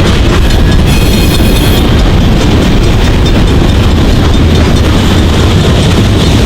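CN freight train rolling past at close range: a loud, steady rumble of steel wheels on rail from passing freight cars.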